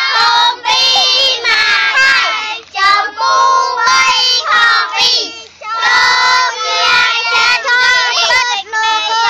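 A group of young children singing together in unison, several sung phrases with held notes and short breaks between them.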